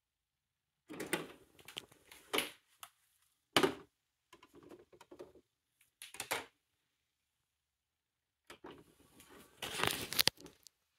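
Disc tray mechanism of a Toshiba SD-V296 DVD/VCR combo player sliding open and shut, mixed with the clicks of handling the player and its remote. It comes as several short bursts of clicking and clattering, the longest and loudest near the end.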